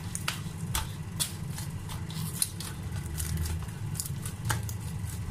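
Hands kneading soft whole-wheat roti dough in a stainless steel bowl: irregular sticky clicks and slaps as the dough is pressed, folded and pulled off the metal, over a steady low hum.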